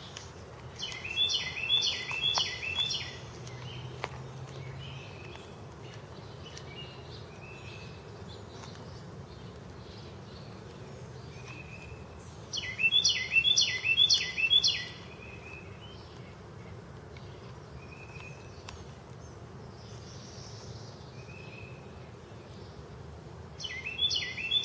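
A songbird sings the same phrase of rapid, repeated chirping notes three times, about ten seconds apart. Underneath is a faint, steady low hum.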